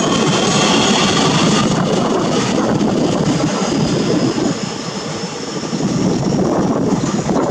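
Taiwan Railways EMU700 electric multiple unit departing a station, its wheels and traction motors making a steady rushing noise with a faint high whine. The sound eases off a little just past halfway, then rises again.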